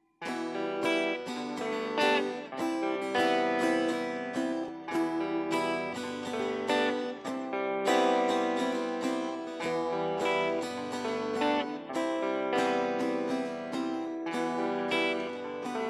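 Two guitars playing an instrumental intro, strummed in a steady rhythm of chords and notes.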